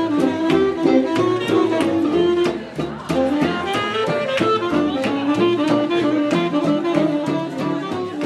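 Live small swing jazz band playing dance music: saxophone carrying the melody over upright bass, with a steady beat.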